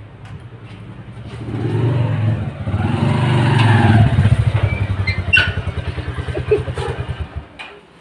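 Small motorcycle engine running at low revs, its beat growing louder as the bike comes close, with a couple of sharp clicks about five seconds in. The engine cuts out shortly before the end.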